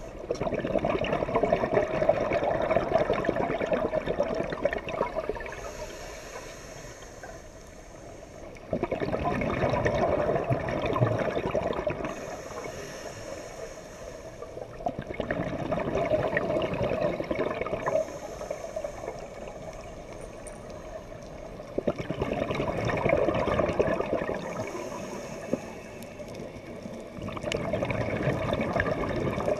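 Scuba diver breathing through a regulator underwater, slow and rhythmic at about one breath every six seconds: each breath is a thin hissing inhale followed by a long rush of exhaled bubbles, five exhales in all.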